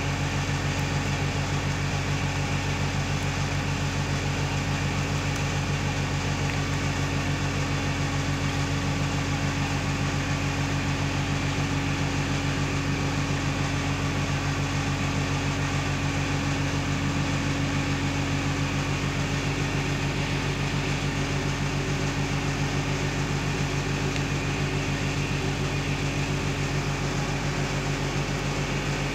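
Steady mechanical hum with a constant low drone and a hiss above it, unchanging throughout, like a motor running.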